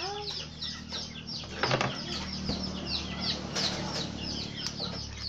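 Chicks peeping over and over in short, high, falling notes, with chickens clucking. A few dull knocks come from a wooden pestle in a wooden mortar.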